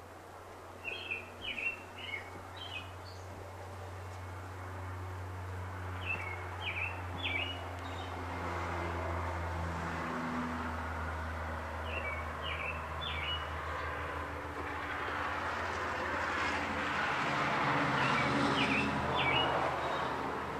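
A songbird repeats a short phrase of a few quick notes four times, about six seconds apart, over a steady low drone. A rushing noise swells in the last few seconds.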